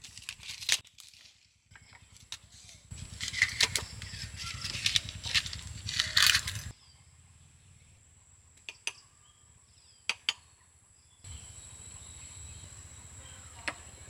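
Parchment paper being cut with scissors and handled, crinkling and rustling in short bursts, with a few sharp taps as small ceramic dishes are set down on a wooden board.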